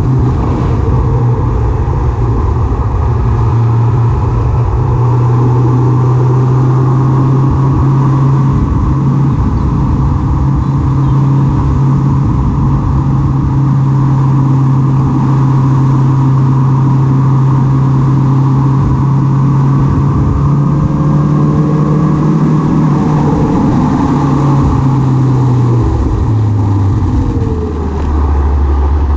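Vehicle engine running at a steady cruising speed, with road and wind noise. Its hum drops to a lower note about two seconds before the end as the vehicle slows.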